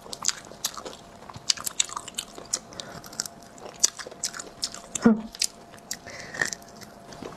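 Close-up eating sounds of spicy sea snails: irregular wet clicks and lip smacks as the snail meat is pried from the shells and chewed.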